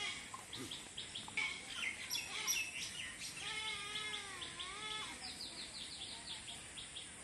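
Small birds chirping in quick short notes, with one longer call, a little over a second long, starting about three and a half seconds in, whose pitch dips and rises again.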